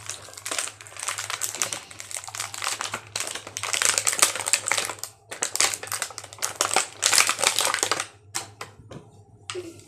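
Plastic toy packaging crinkling and crackling as it is handled and pulled apart, a dense run of sharp crackles that thins to a few scattered clicks near the end.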